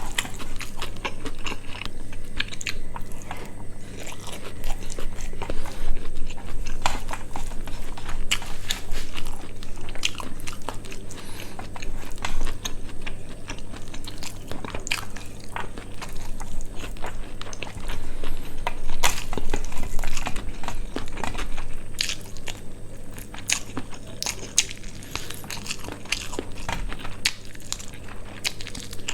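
Close-miked eating: a person chewing and biting, with irregular crunchy clicks and wet mouth sounds, steady through the stretch over a low electrical hum.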